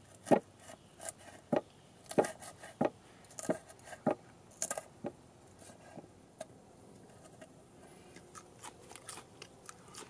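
A knife cutting through cooked bacon onto a wooden cutting board: a string of crisp cuts and taps, about one every half second, loudest in the first half and fainter and sparser after.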